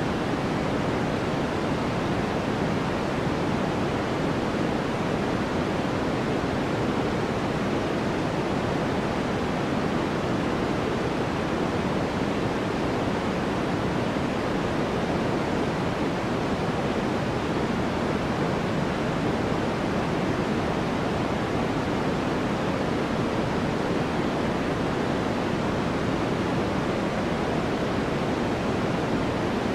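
Steady white noise background track: an even, unchanging hiss, fuller in the lower-middle range than at the top.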